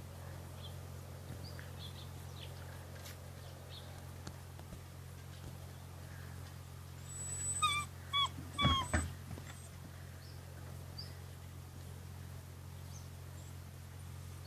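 Rhodesian Ridgeback puppies whimpering, with three short, high yelps close together about eight seconds in and faint squeaks elsewhere, over a steady low hum.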